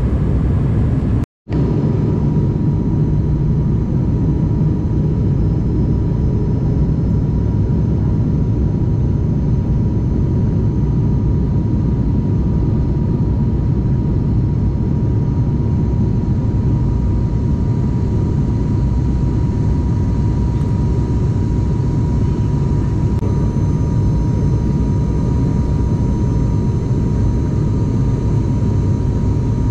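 Steady cabin noise of a Buddha Air turboprop airliner in flight: a low, even drone with a thin steady whine above it. It cuts out for an instant about a second in.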